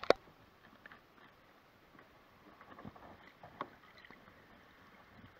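A crab hoop net being hauled out of the water beside a small boat: a sharp knock just after the start, a smaller one about three and a half seconds in, and light clicks and water noise between.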